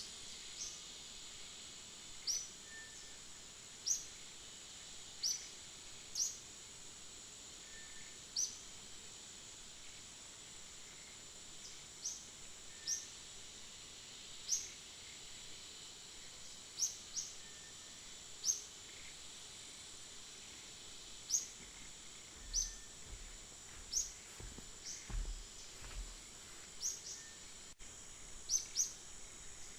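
Outdoor tree ambience: a steady high insect drone, with short rising bird chirps repeating irregularly every second or two. A few faint low thumps come in the second half.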